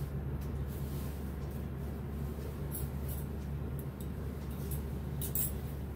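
Silk sarees being handled and pulled from a folded pile, with a few brief rustles around three seconds in and again just after five seconds, over a steady low hum.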